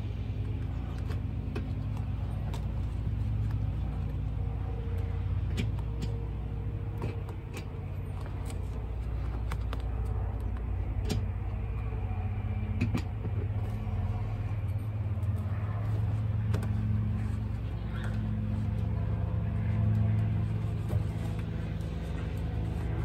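Steady low mechanical hum with a few held pitches, like a motor running nearby, under scattered light clicks and rustles of molded car carpet being pressed down and cut by hand.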